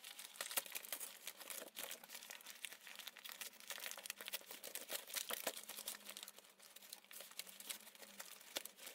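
Brown paper gift wrapping being torn open and crumpled by hand: a steady run of irregular crinkling and tearing crackles, fairly faint.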